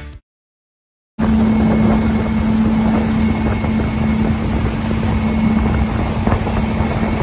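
Regal 26 XO motorboat running at speed across open water: a steady engine drone under rushing wind noise on the microphone. It starts about a second in, after a brief silence.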